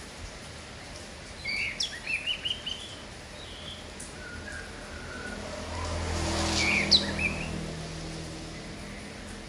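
Sooty-headed bulbul (kapas tembak) calling in two short bursts of quick chirps, about one and a half seconds in and again near seven seconds, over a steady hiss. A low rumble swells and fades around the second burst.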